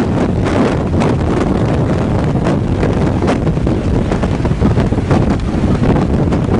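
Hurricane-force wind blasting across the microphone: a loud, continuous low rumble with many short gusts.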